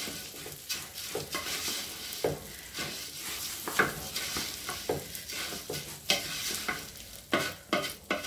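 Raw basmati rice and onions frying in oil in a stainless steel pot, stirred and scraped with a wooden spatula: a steady sizzle broken by irregular scraping strokes. The rice is being toasted in the oil until lightly browned before the other ingredients go in.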